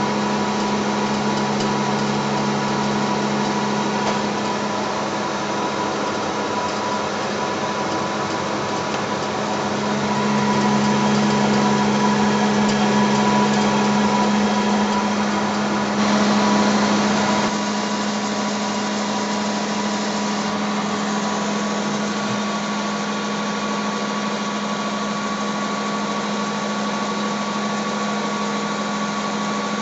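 Coil generator test rig running: a steady electrical hum with a strong low drone near 200 Hz and a fainter high whine. The hum swells about a third of the way through and drops back to a steadier level a little past halfway.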